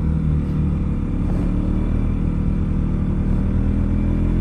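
Motorcycle engine running steadily while riding up a steep mountain road, with road and wind noise on the microphone.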